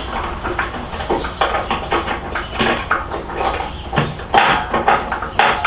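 Irregular clinks and knocks of metal tools and hardware being handled while crash bars are fitted to a motorcycle, loudest about four and five and a half seconds in.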